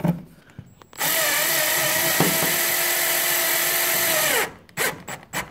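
Power drill driving a self-tapping screw through a Renogy solar panel mounting bracket into the van's sheet-metal roof: the motor whines steadily for about three and a half seconds, then winds down, followed by a few light knocks.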